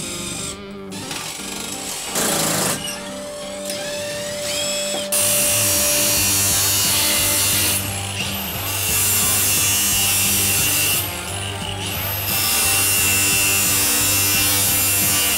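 Milwaukee Fuel cordless angle grinder running and cutting into the metal of an aircraft floor seat rail and its screws, throwing sparks: a steady high whine that starts about five seconds in and eases off and spins back up twice. Before it, short runs of a cordless impact driver on the seat-rail screws.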